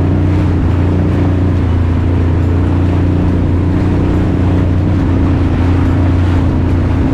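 Yamaha WaveRunner jet ski engine running steadily at trolling speed, a constant low drone over the rush of water from the wake.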